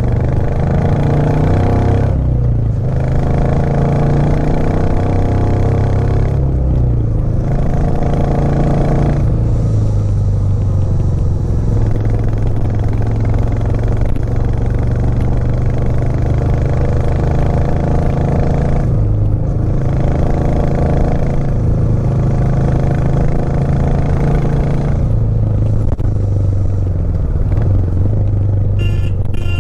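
Royal Enfield Classic 350's 349 cc single-cylinder engine pulling uphill under load, its pitch stepping up and down as the rider lifts off the throttle briefly every few seconds, as for gear changes.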